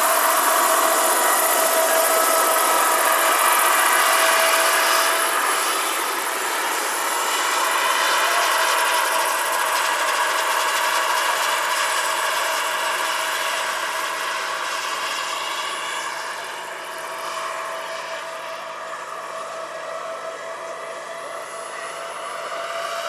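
Turbine engine and twin tandem rotors of a large radio-controlled Boeing Vertol CH-46 scale model helicopter in flight, a steady whine of several held tones that grows fainter after about five seconds as it flies away.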